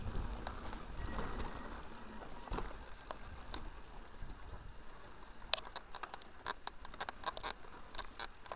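Mountain bike rolling down a dirt and stone trail: a low tyre rumble, with sharp clicks and rattles from the bike and its tyres over stones, coming thick and fast from a little past halfway.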